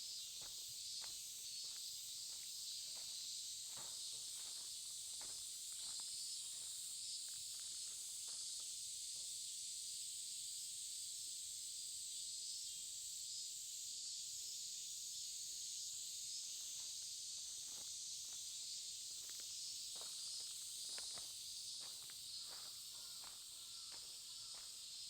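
A steady, high-pitched chorus of insects chirring, with a person's walking footsteps below it, sparse for several seconds in the middle and then steady again.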